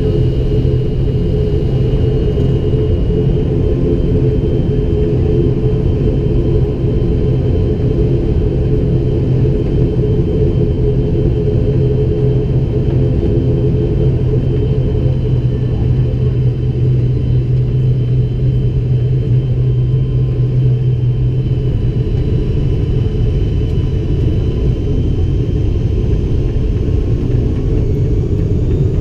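Cabin drone of an ATR 72-500's turboprop engines and propellers during a slow taxi, a steady, even rumble. A low hum under the drone drops away about three-quarters of the way through.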